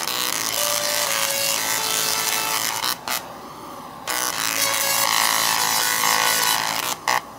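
Singing Tesla coils' arcs buzzing out musical notes, a harsh rasping sound at shifting pitches. The arcs cut out for about a second near the middle and again just before the end.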